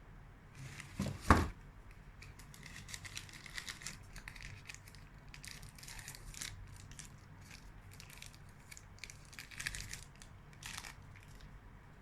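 A wrapper on a chocolate bonbon being crinkled and torn open by hand in short rustling bursts, after a single knock about a second in.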